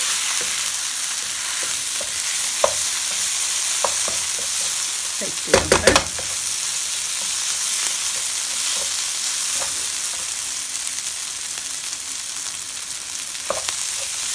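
Green tomato and coconut thoran sizzling in a non-stick pan as a wooden spatula stirs and scrapes through it, cooking off the last of the liquid. About six seconds in, the spatula knocks sharply against the pan a few times in quick succession.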